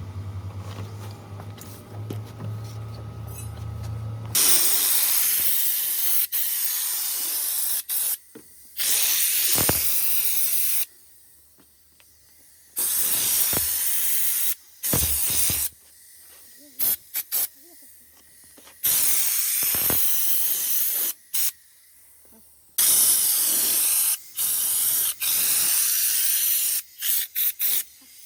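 Compressed air hissing from an air tool in repeated bursts of about one to three seconds, each starting and stopping sharply, after a steady low hum in the first four seconds.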